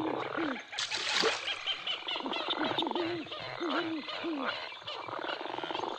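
Frog croaking sound effect: a string of short croaks that rise and fall in pitch, repeating quickly, with a brief hiss about a second in.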